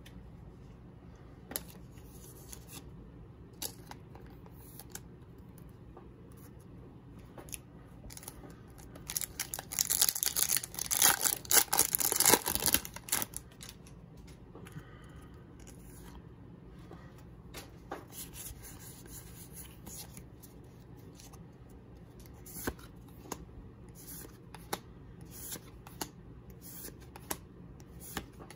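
A foil booster-pack wrapper torn open, a loud rip and crinkle lasting about four seconds starting some nine seconds in. Around it, trading cards are handled: soft clicks and slides as they are flicked through.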